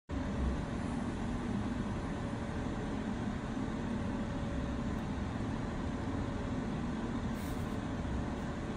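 Steady low rumbling background noise with a faint, steady hum, starting suddenly out of silence.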